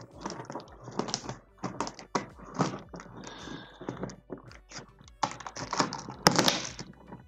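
Scissors cutting the packing tape on a large cardboard box: irregular snips, clicks and taps on the cardboard, with a louder burst about six seconds in.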